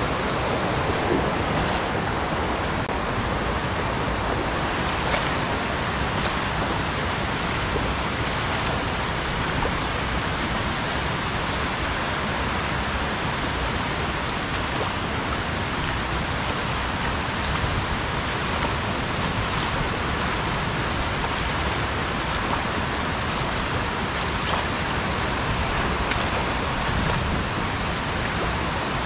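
Steady rush of a shallow tailwater river running over rocks and riffles below a dam spillway.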